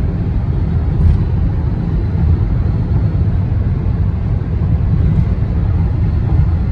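Steady wind and road roar inside the cabin of a Toyota Kijang Innova Reborn at highway speed, heaviest in the low end, including the air rush around the A-pillar.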